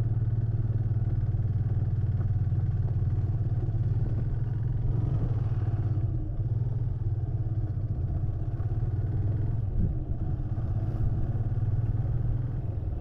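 Motorcycle engine running steadily at a constant cruising speed, with wind and road noise.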